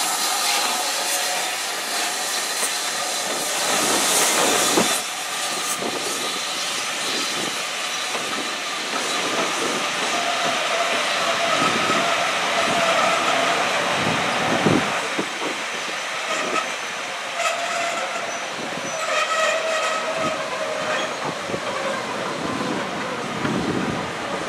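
A steam train passing close by. The LNER B1 4-6-0 locomotive No. 1264 goes past with a hiss of steam, with a strong burst of steam hiss about four seconds in. Its coaches then roll past, their wheels clattering over the rail joints.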